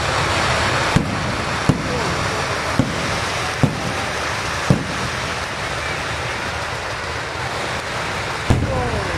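Aerial fireworks going off: a dense, steady crackle and fizz of rockets and falling sparks, with sharp bangs about once a second for the first five seconds and one more near the end.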